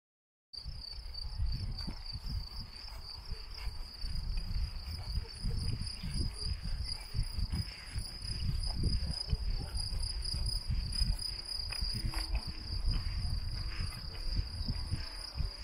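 Cicadas buzzing in one steady high-pitched drone that starts about half a second in, with wind buffeting the microphone underneath.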